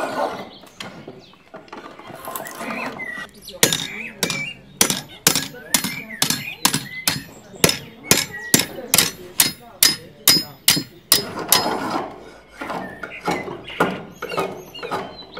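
Hammer blows on metal on an anvil, a steady run of sharp ringing strikes about three a second, starting a few seconds in and stopping about three seconds before the end. Wavering squealing sounds come before and after the hammering.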